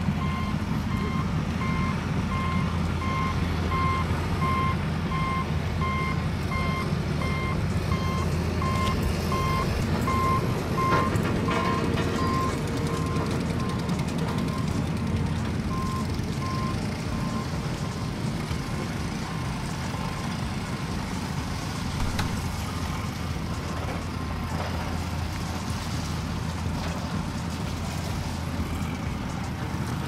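A vehicle reversing alarm beeps steadily over the low, steady rumble of an engine. The beeps stop a little past halfway, and the engine rumble goes on.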